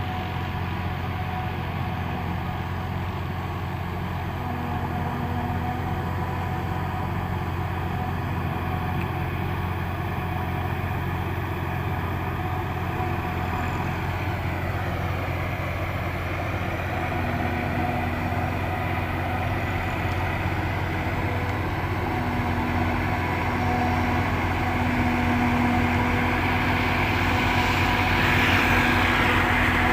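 Corn harvester running steadily: an engine hum with a steady whine from the machinery, growing gradually louder over the second half.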